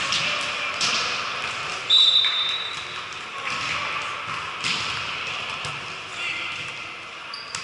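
Volleyball match play in a gym: sharp smacks of hands on the ball now and then, a short high whistle blast about two seconds in, and players' voices in the background.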